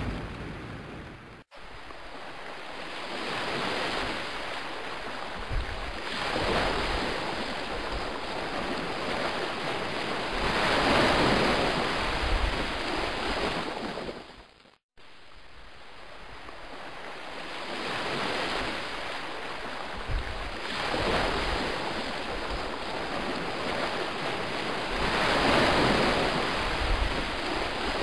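Surf sound effect: waves swelling and receding in a looped recording, cut off briefly by a short gap about a second and a half in and again about halfway through.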